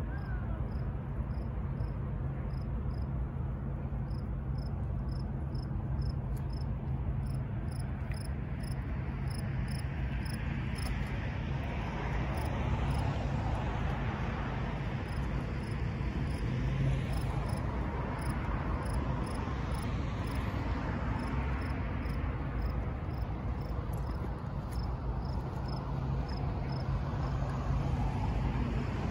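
Crickets chirping steadily in an even rhythm, about two to three chirps a second, over the low rumble of road traffic that swells as vehicles pass in the middle.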